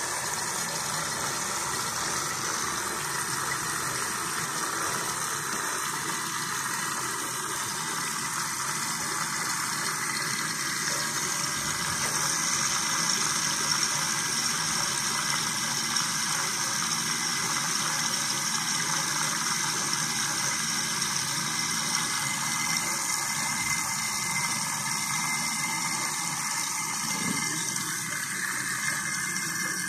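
Small battery-powered electric pump, salvaged from a disinfection spray gun, running steadily as it draws oil through a hose and fills a plastic bottle with it.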